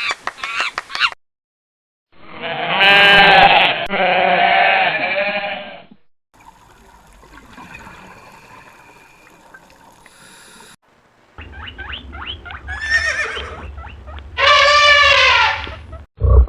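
A series of separate animal calls, one short clip after another: brief calls at the start, a loud drawn-out bleating call, a faint stretch, then rapid repeated calls and another loud call near the end.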